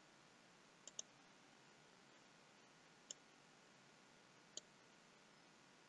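Faint computer mouse button clicks over a low steady hiss: a quick double click about a second in, then single clicks near three seconds and again near four and a half seconds.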